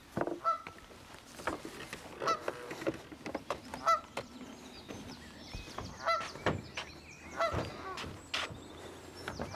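Geese honking, a short call every second or two, with smaller birds chirping and twittering behind them.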